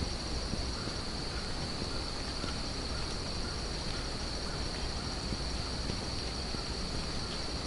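Steady high-pitched drone of crickets trilling in the woods, unbroken, over a low rumble of wind on the microphone.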